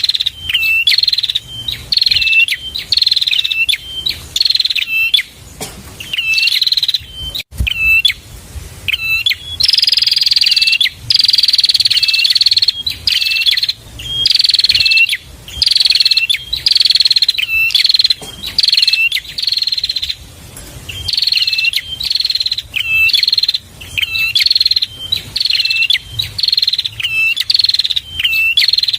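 Prenjak (prinia) calling over and over: sharp, buzzy, high chirping phrases, about one a second, with a few longer notes that fall slightly in pitch.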